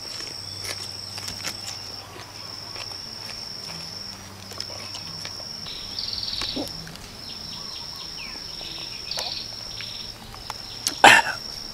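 Someone chewing a mouthful of raw red onion, with scattered short crunchy clicks and one louder, sharper crack near the end. Behind it a steady high-pitched insect buzz breaks off and restarts every second or two.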